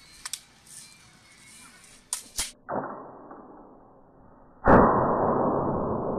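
Flintlock musket: sharp metallic clicks as the lock is worked, then firing. A first, softer bang comes about two and a half seconds in, and the loudest report near five seconds in, with a long fading tail.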